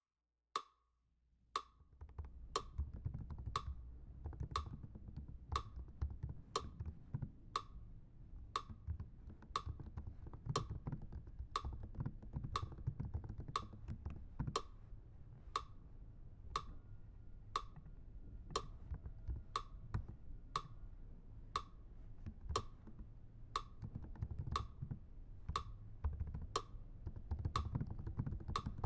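A steady beat of sharp wooden clicks, evenly spaced like a metronome, each with a short ring. From about a second and a half in, a low rough rumble runs under them.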